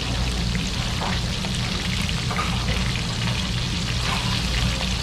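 Battered cutlassfish pieces frying in a shallow pan of hot oil: a steady sizzle with fine crackling, over a steady low rumble.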